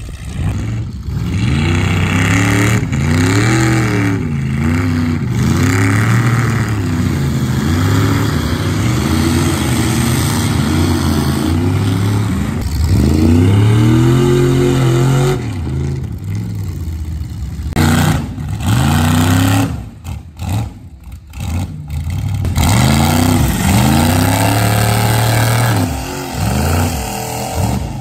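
OBS Chevy pickup's engine revving hard again and again while working through a mud bog, its pitch climbing and falling every second or two. It drops off briefly a few times about two-thirds of the way through, then revs up again.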